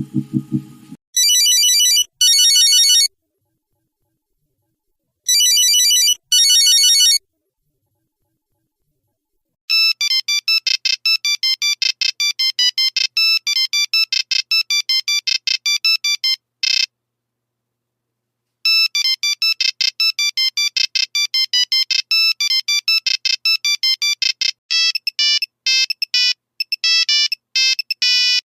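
Nokia mobile phone ringtones playing one after another. First comes a warbling electronic ring in two pairs of short bursts. After a pause come two long, rapid, beeping single-note melodies with a short break between them.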